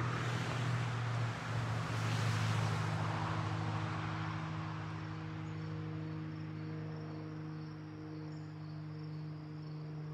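A vehicle passing, its noise swelling and then fading away over the first few seconds, over a steady low hum. Crickets chirp in a steady rhythm throughout.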